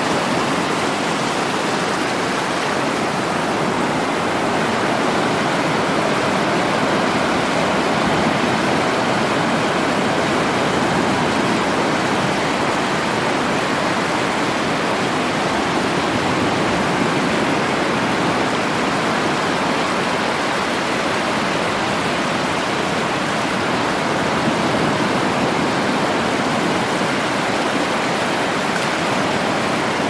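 Ocean surf: a steady, even rush of breaking waves, with no single wave crash standing out.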